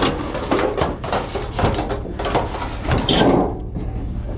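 Irregular knocks and scrapes of junk being shifted and pulled while rummaging through a dumpster, with a steady low hum underneath.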